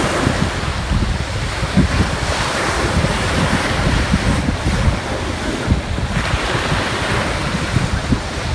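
Ocean surf washing in, swelling and ebbing every few seconds, with wind buffeting the microphone.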